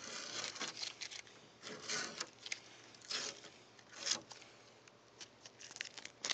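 Blue painter's tape being peeled off a car's bumper and grille by hand, in several short ripping pulls. The tape comes off less easily than hoped.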